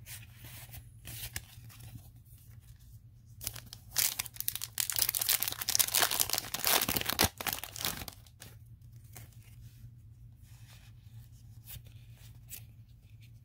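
A foil Yu-Gi-Oh booster pack is torn open and crinkled by hand, a dense crackling rustle lasting about four seconds in the middle. Before and after it there are only faint clicks of trading cards being handled.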